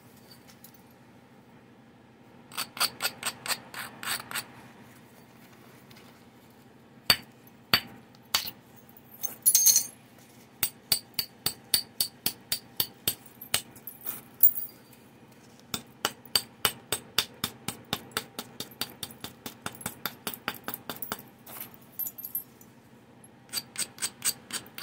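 Edge of a stone Clovis point preform being worked with a hand-held abrading stone and antler: runs of quick, sharp clicking strokes, about three or four a second, with a few louder single strikes about seven to eight seconds in.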